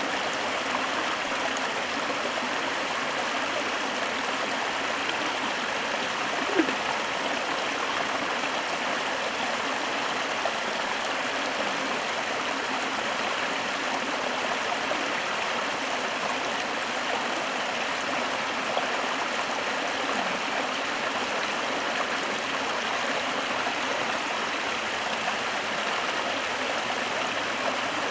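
Water of a small waterfall pouring and splashing in a steady rush, with one brief sharper sound about six and a half seconds in.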